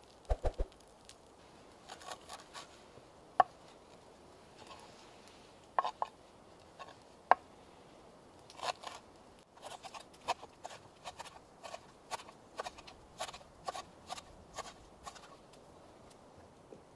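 Kitchen knife chopping fresh green herbs on a wooden cutting board: a few scattered knocks at first, then a quick run of chops through the second half.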